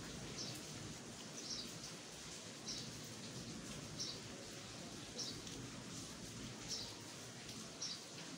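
A bird chirping a short, high call over and over, about once a second, over a steady low background hum of outdoor noise.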